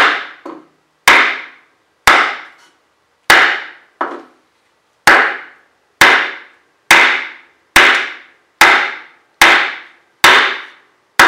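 Hammer blows on a block set on top of a cylinder sleeve, driving the chilled, oiled sleeve into a 1947 Ford 8N engine block, about a dozen strikes at roughly one a second. Each is a sharp knock with a short ringing tail; one blow about four seconds in is lighter.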